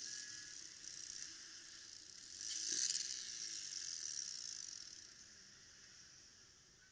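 Faint hiss of wind and traffic noise picked up by a motorcycle-mounted camera riding in traffic. It swells briefly about two and a half seconds in, then fades away toward the end.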